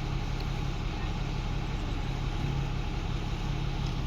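Heavy diesel engine running steadily with an even low hum, no change in pace.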